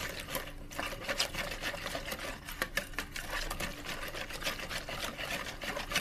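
A spoon stirring a thin batter of gram flour, yogurt and water in a bowl, beating it briskly to work out lumps, with rapid clicks and scrapes against the bowl's side.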